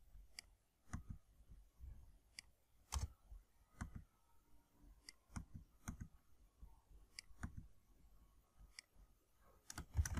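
Faint, irregular keystrokes on a computer keyboard as code is typed and re-indented, a single click every half second to second, bunching up near the end.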